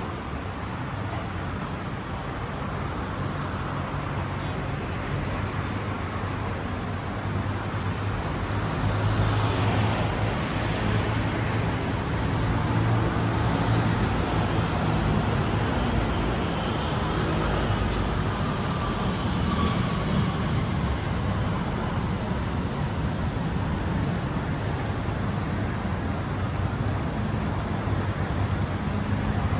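City road traffic: a steady rumble of cars and buses, with individual vehicles passing. It gets somewhat louder about eight seconds in.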